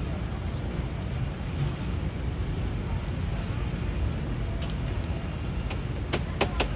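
A steady low background rumble, with three sharp clicks near the end as a clear plastic jug is handled.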